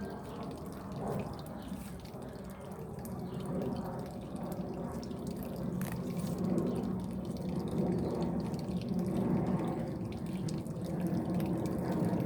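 Water trickling and dripping steadily, getting somewhat louder as it goes on.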